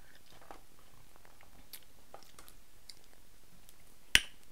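King crab leg shell being cracked apart by hand: faint small clicks and crackles as the shell is worked, then one sharp, loud crack near the end.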